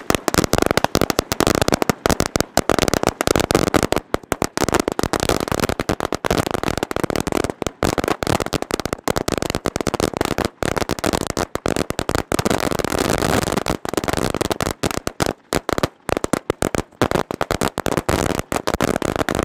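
A 1000-cracker firecracker string (hazaar wali ladi) going off: a loud, continuous rapid chain of sharp bangs, many per second, thinning out slightly near the end.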